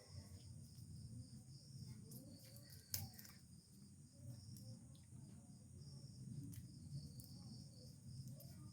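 Near silence with a steady, high-pitched cricket drone, and a single faint click about three seconds in.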